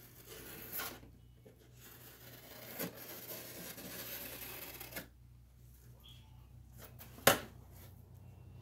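Packing tape being cut and peeled off a cardboard box: scratchy rasps, then a longer ripping stretch from about two to five seconds in. One sharp knock near the end, the loudest sound, as the box is opened.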